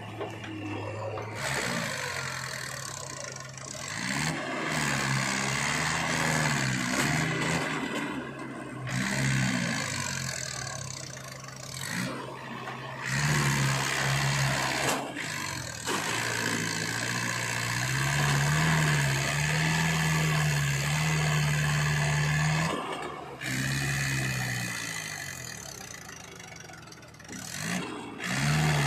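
Diesel engines of a JCB 3DX backhoe loader and an old Mahindra 475 DI tractor running, repeatedly revving up and settling back, with several abrupt breaks in the sound.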